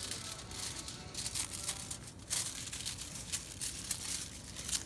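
Aluminium hair-colouring foil crinkling as it is folded and pressed flat over a section of hair, in repeated short crackles.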